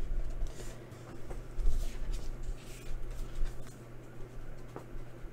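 Cardstock cards being handled on a cutting mat: soft paper scrapes and light taps, a few at a time.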